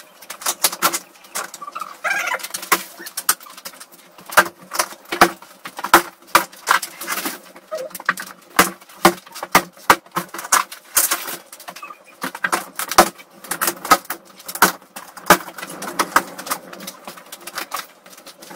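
Ceiling panels being pried and pulled down by hand: a steady run of irregular cracks, snaps and knocks as the cladding breaks away from the joists.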